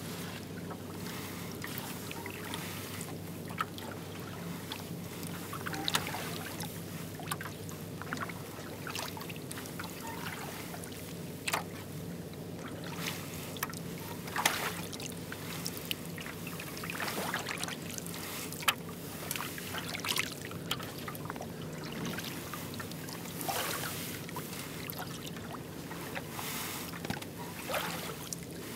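Double-bladed kayak paddle dipping into calm water stroke after stroke, each stroke a short splash with water trickling off the blades, every second or two, over a steady low hum.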